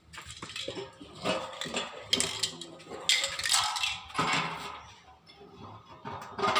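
A metal satellite dish and its LNB arm being handled: a few separate clanks and scrapes of metal.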